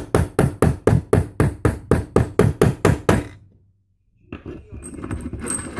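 Hammer striking a metal letter stamp into an aluminium card in a fast, even run of blows, about four a second, stopping about three seconds in.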